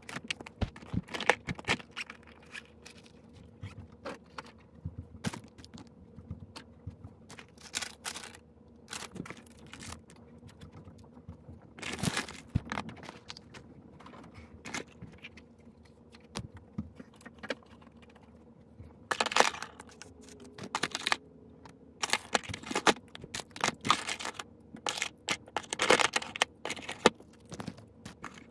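Small objects being picked up and set down on a nightstand while it is tidied: irregular clicks, taps and knocks with rustling of paper receipts, busiest around the middle and in the last third.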